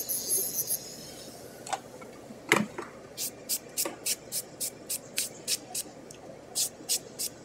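Nail file or buffer block stroked across fingernails to shape them, in short quick strokes about three a second from about three seconds in. A single sharp knock comes just before the strokes start, and a high hiss fills the first second.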